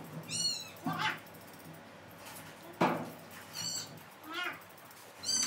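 Grooming scissors snipping a standard poodle's coat, with a few sharp snips. Between the snips come several short, high-pitched squeaks that slide downward in pitch.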